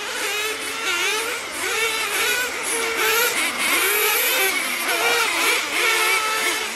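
Several nitro RC cars' small glow engines running high-pitched and overlapping, each rising and falling in pitch as the cars accelerate and slow around the track.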